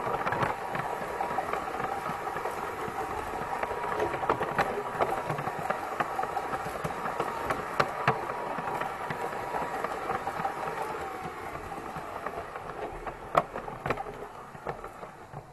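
Piko G-scale model train running on brass track, heard close up: a steady electric-motor whine with rattling wheel and gear noise and a few sharp clicks. Near the end the whine drops in pitch and the sound fades as the train slows to a stop.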